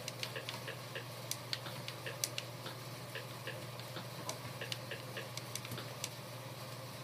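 Faint, irregular clicks, two or three a second, of a PlayStation 4 controller's buttons typing a search letter by letter on the on-screen keyboard, over a steady low hum.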